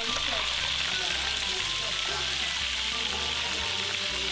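Whole spiny lobster deep-frying in hot oil in a wok: a steady sizzle.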